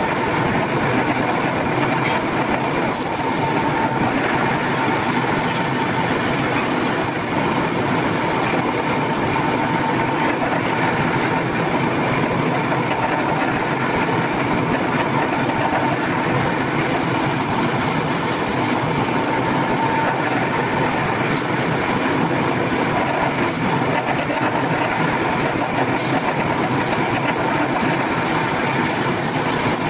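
A power tool running steadily, with an even, noisy sound and a faint steady tone, unbroken throughout.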